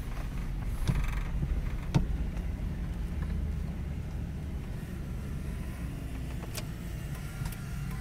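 Steady low rumble of a car's engine and tyres heard from inside the cabin while driving, with a few light clicks, the sharpest about two seconds in.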